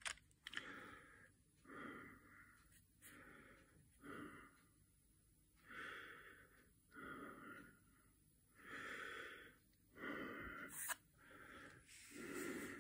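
Soft breathing close to the microphone, in and out about ten times, with a few faint clicks near the start and about eleven seconds in.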